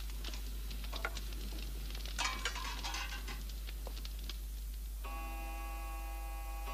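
Light clinks and a brief clatter of cutlery and dishes. About five seconds in, a clock starts chiming, a set of sustained bell-like tones.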